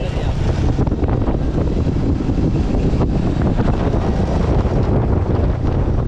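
Motorcycle on the move: steady wind buffeting the camera's microphone over the engine running at road speed.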